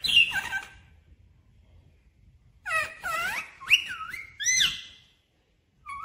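Indian ringneck parakeet calling in high-pitched, whistle-like calls that swoop up and down in pitch: a short burst at the start, then a string of several calls about halfway through. A brief flutter of wings comes at the start.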